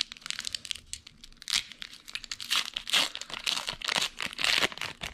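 Foil wrapper of a Pokémon trading card booster pack being torn open and crinkled by hand: an irregular run of rips and crackles.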